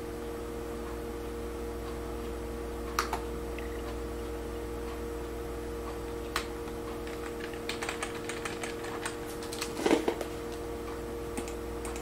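Computer keyboard keys pressed one at a time to move through a text-mode menu: a few separate clicks, then a quick run of taps about eight seconds in, over a steady low hum.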